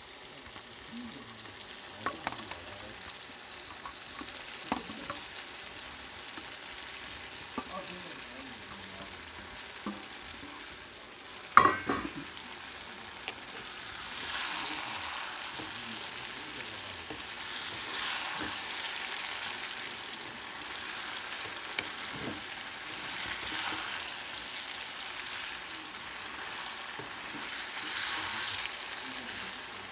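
Chicken wings sizzling in hot oil with onions and tomatoes in a frying pan, with metal spoon clicks as the wings are scraped in and one sharp knock about twelve seconds in. From about fourteen seconds the sizzle gets louder, swelling and fading every few seconds as the pan is stirred.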